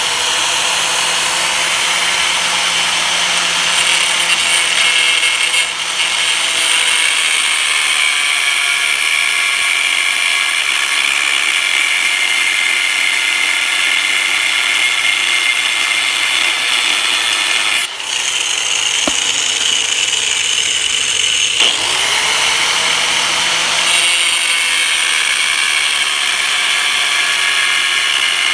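A power tool running steadily and loudly. About two-thirds of the way in its sound briefly changes, dipping in pitch and then coming back up.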